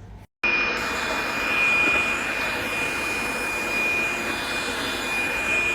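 Cordless handheld vacuum cleaner running, a steady rushing motor noise with a constant high whine, starting abruptly about half a second in.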